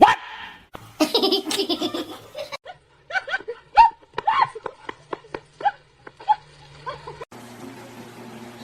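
A person laughing in a run of short bursts, dying away after about seven seconds into a steady faint hum.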